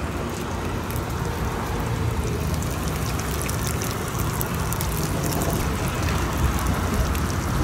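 Diced corn, bell pepper and onion sizzling in hot oil in a frying pan, with many small crackles throughout.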